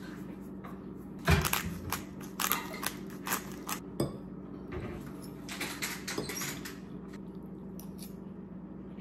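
A metal fork clinking and scraping against a plate of scrambled eggs: a run of short, irregular clicks, the loudest about a second in, over a steady low hum.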